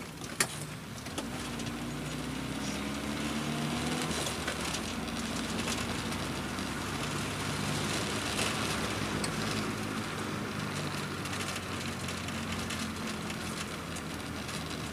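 Volkswagen Voyage engine and road noise heard from inside the cabin while driving, the engine note rising as the car accelerates early on and then running steadily. A single sharp click comes about half a second in.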